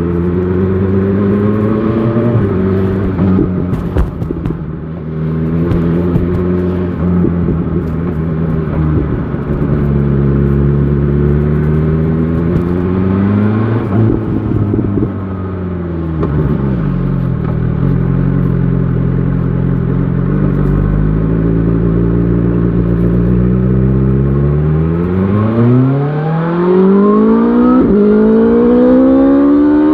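BMW S1000 XR motorcycle engine under way, its pitch rising and falling with the throttle: a short climb, a drop around the middle as it slows, a steady cruise, then a strong acceleration over the last few seconds, the rising note broken by quick upshifts.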